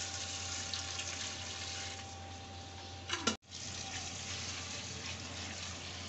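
Water poured in a stream into a large aluminium pot of fried chicken and masala, splashing into the liquid. A little past halfway there is a short rising sound and a sudden momentary dropout, then the pouring goes on.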